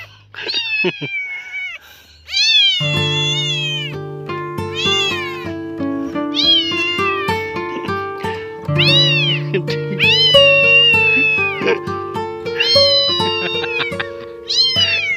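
Newborn kitten mewing over and over in high, arching cries, about one a second, while held in a hand. Background music comes in about three seconds in.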